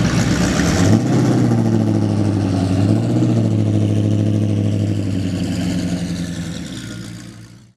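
An engine running steadily with a low hum, fading away over the last couple of seconds before cutting off.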